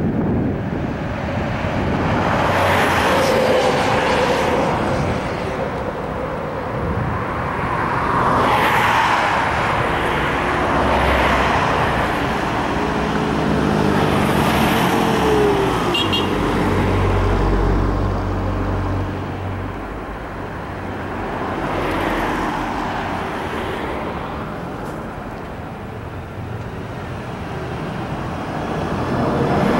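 Road traffic: vehicles passing one after another in swells every few seconds, with a lower engine note holding for several seconds around the middle.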